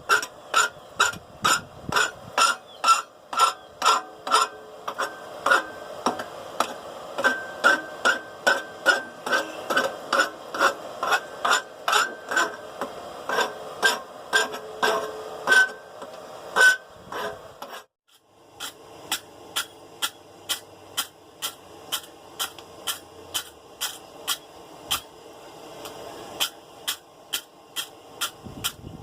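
Hand rasp working the hot steel of a forged clacker clamped in a vise: quick regular strokes, about two or three a second, each with a short metallic ring. A brief pause comes about eighteen seconds in, then the strokes go on with less ring.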